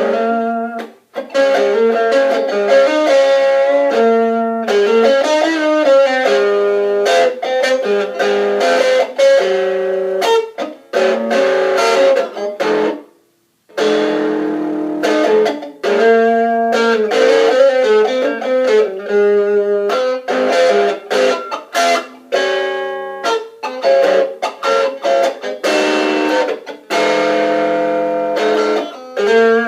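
Electric guitar played through a small solid-state practice amp with a built-in 4-inch speaker: a run of notes and chords with almost no deep bass. The playing stops briefly about halfway through.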